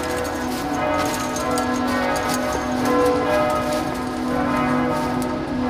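Bells ringing in a continuous peal, many struck tones overlapping and sustaining.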